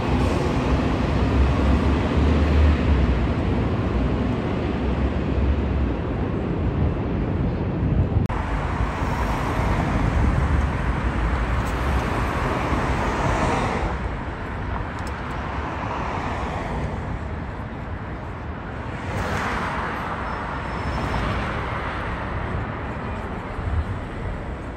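A city transit bus's diesel engine running close by with a low rumble. After a cut about eight seconds in, street traffic follows: cars passing and another city bus approaching.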